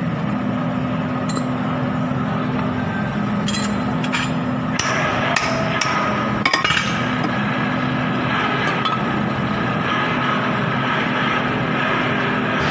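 Hammer striking metal: several sharp metallic knocks over a few seconds, the loudest about six and a half seconds in, over a steady machine hum.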